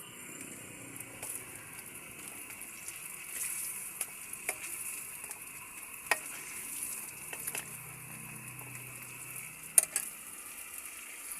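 Ukoy fritters frying in hot oil: a steady sizzle with a few sharp pops or clicks scattered through it, the loudest near the end.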